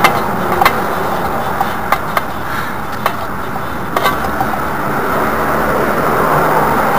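Steady background noise with a few light clicks as the drain plug of a VAZ classic's rear axle is turned out by hand; by the end the old oil begins to run out.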